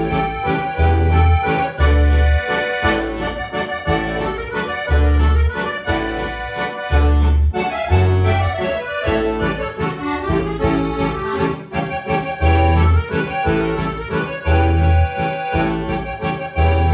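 Accordion music from the Turbosounds app: a folk melody over a steady bass-and-chord accompaniment, with a low bass note about once a second.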